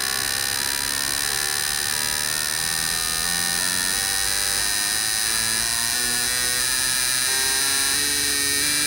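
Fuel injector test bench running its automatic check cycle, with the injectors firing continuously to compare flow: a steady electric buzz whose lower tones shift pitch in steps.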